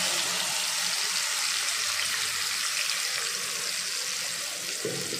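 Wet ground onion, tomato and garlic paste sizzling hard in hot oil in a kadai: a loud, steady frying hiss that eases slightly toward the end.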